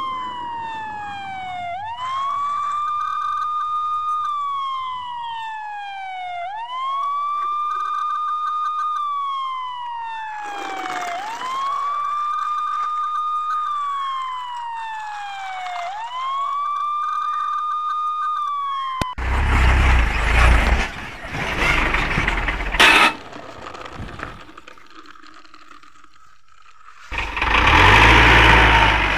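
Electronic police siren wailing: each cycle rises quickly, holds, then slides slowly down, repeating about every five seconds, four times. It cuts off about 19 seconds in and gives way to rough rustling and scraping noise, which becomes loud near the end.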